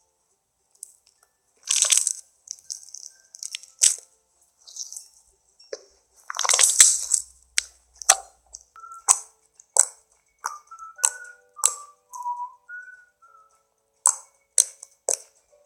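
Soft slime squeezed and stretched by hand: irregular sharp pops and crackles of trapped air bursting, with two longer squishy bursts, about two and about seven seconds in.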